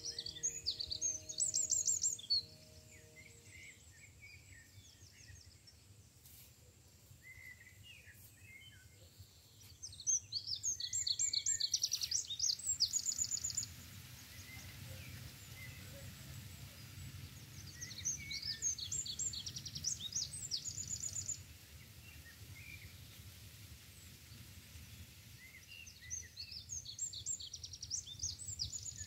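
A songbird sings the same short, high, quickly trilled phrase four times, about every eight seconds, over a low steady rumble. Soft background music fades out in the first couple of seconds.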